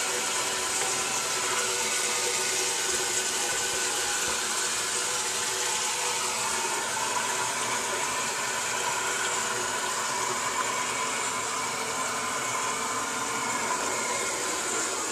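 Crane Plumbing toilet refilling after a flush: a steady hiss of water running into the tank, with a faint steady whine in it.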